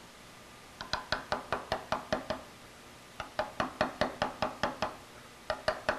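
Light, rapid hammer taps on a steel chisel cutting a V-groove into very hard slate, about six or seven taps a second. They come in three runs separated by short pauses.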